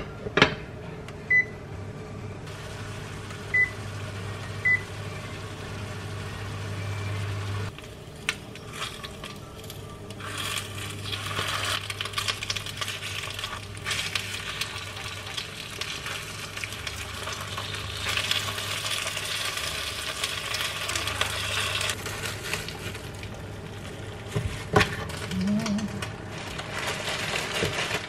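A glass pan lid clinks down on a frying pan, then the induction cooktop gives three short beeps over a low hum. Frozen chive buns then sizzle as they fry in the pan, and a knock of cookware sounds near the end.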